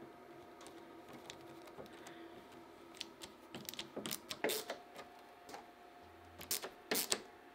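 Wood screws being driven by hand with a screwdriver into a hardwood strip, giving faint scattered clicks and creaks, a few louder ones near the middle and end, over a faint steady hum.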